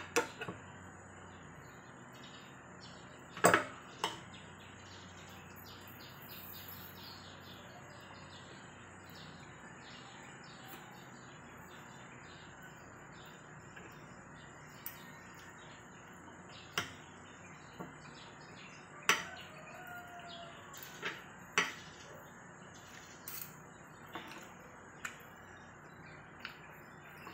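Spoon and fork clinking and scraping on a plate while eating: about a dozen sharp clinks at irregular intervals, the loudest a pair about three and a half seconds in.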